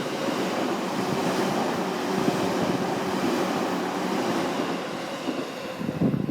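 JR East Nanbu Line electric train passing through without stopping: a steady rumble of wheels on rail that eases off about five seconds in.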